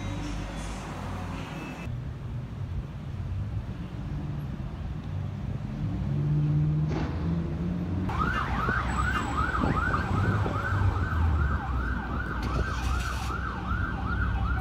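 Low road-traffic rumble, then about halfway through an emergency vehicle siren starts up in a fast yelp, its pitch sweeping up and down two to three times a second.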